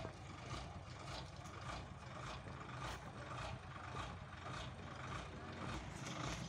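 Railway tower wagon's diesel engine idling steadily, with a low hum and faint regular pulsing about two to three times a second.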